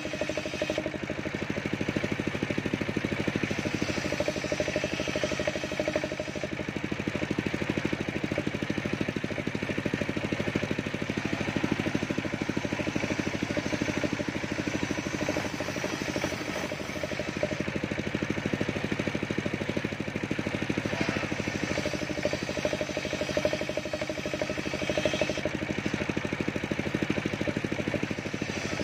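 Homemade circular saw bench running steadily, its blade ripping waru wood into battens and throwing sawdust. The level holds even throughout.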